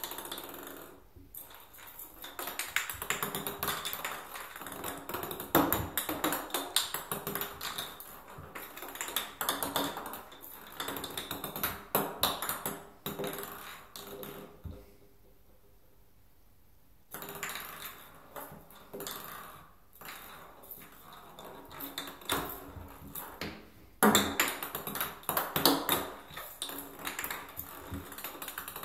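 A ping pong ball bouncing, rolling and clattering around an empty bathtub as a kitten bats it with its paws: a run of quick light taps and clicks, with a quiet stretch about halfway through.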